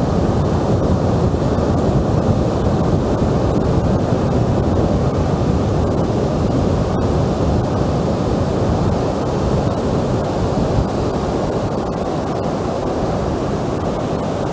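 Wind blowing across the microphone as a steady low rumble, mixed with the wash of surf breaking on a sandy beach.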